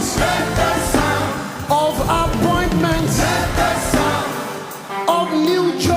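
Gospel worship music: a singer's voice gliding through a melody over a full band accompaniment, dipping briefly about four seconds in before the singing picks up again.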